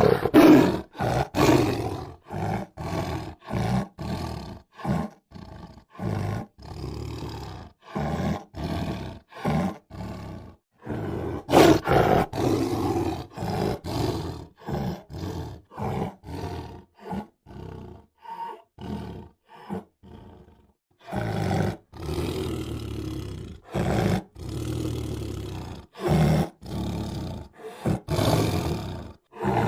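Tiger roaring in three bouts. Each begins with a loud roar and trails off into a string of shorter calls, about two a second, that fade out; new bouts start about 12 and 21 seconds in.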